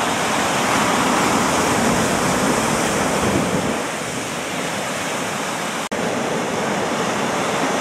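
Sea surf breaking and washing against a rocky shore: a steady rush of water noise, with a momentary dropout a little before six seconds in.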